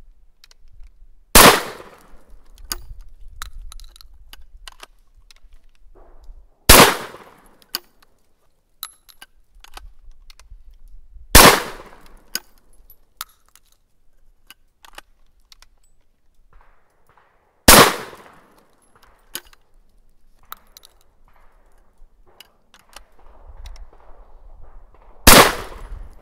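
Single-shot shotgun fired five times, one shot every five or six seconds. Small clicks of the action being broken open and reloaded come between the shots.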